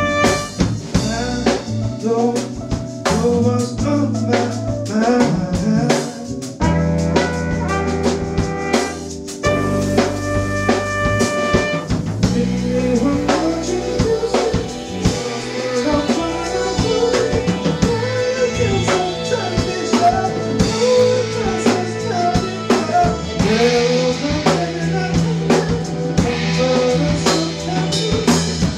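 A live band playing a soul and hip-hop groove: a drum kit with rimshots, kick and snare under an electric keyboard and other instruments.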